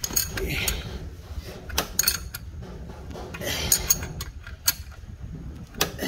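Sharp, irregular metallic clicks and clinks from a wrench working the nut of an injector puller clamped over a Hyundai Grand Starex engine, drawing out a seized injector.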